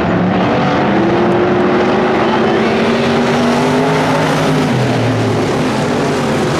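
Several IMCA Stock Car V8 engines running together as the cars circle the dirt track, their overlapping engine notes rising and falling in pitch.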